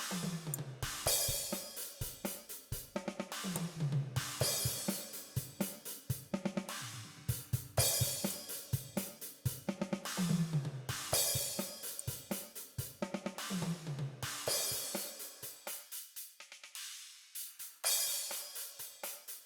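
DrumGizmo virtual drum kit playing back a steady rock beat with bright hi-hat and cymbal wash and snare, with tom fills that step down in pitch every few seconds. This is the left overhead track being EQed with its lows and highest frequencies cut. For a couple of seconds near the end the low drums drop away and only the cymbals remain.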